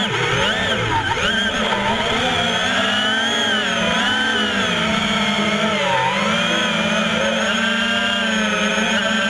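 Drone's electric motors and propellers whining, the pitch wavering up and down, then holding steadier from about six seconds in.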